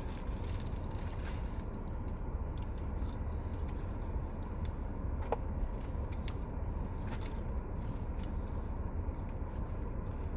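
Close-up eating sounds of people chewing burgers and handling food and wrappers, with scattered small crackles and clicks over a steady low rumble inside a car cabin; one sharp click about five seconds in.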